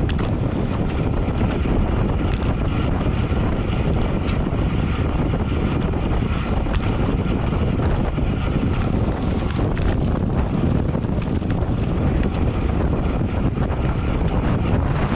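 Wind noise on the microphone of a camera riding along on a road bike at race speed: a steady low rush, with a few faint ticks.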